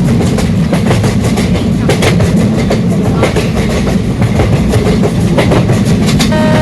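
Passenger train running on the rails: a loud, steady rumble with rapid clicking of the wheels over the track. Near the end a steady multi-note tone comes in over it.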